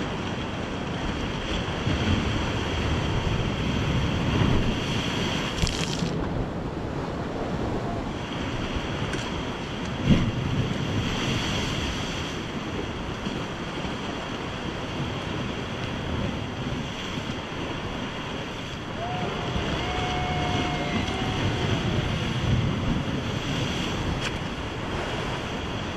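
Rough sea surging and washing over a rocky shore ledge, with wind buffeting the microphone. A single sharp knock comes about ten seconds in.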